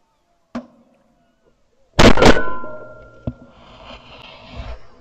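Shotgun fired twice in quick succession about two seconds in, very loud and close, heard from a camera mounted on the gun. A softer single shot comes about half a second in, and a sharp knock follows the pair about a second later.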